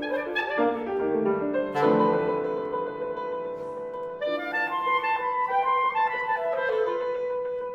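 Clarinet and piano duo playing a contemporary classical piece: quick runs of clarinet notes over piano, with a struck piano chord about two seconds in and longer held notes afterwards.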